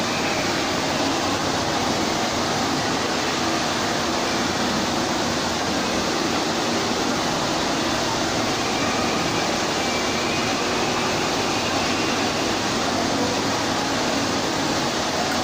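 Indoor fountain's tall central water jet and ring of smaller jets splashing steadily into the pool, a continuous even rush of falling water.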